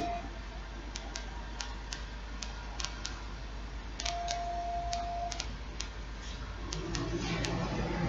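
BMW E64 audio system's loudspeaker test tone: one steady mid-pitched beep a little over a second long, about four seconds in. Light ticking clicks are scattered throughout, and a low hum rises in the last second.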